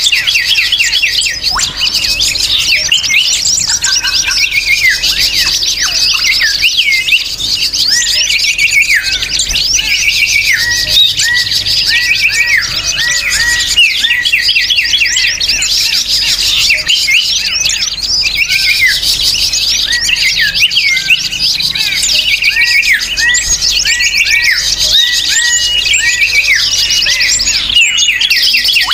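Dense, unbroken chattering of many small birds calling at once: a crowd of quick overlapping chirps and short down-slurred notes. It is a noisy small-bird lure track (suara burung kecil ribut) of the kind played to draw wild birds in.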